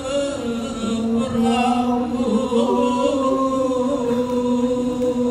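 A man's voice chanting a Sasak pepaosan reading of a takepan manuscript through a microphone, in long drawn-out held notes. The pitch steps down just after the start and is then held with slight wavering.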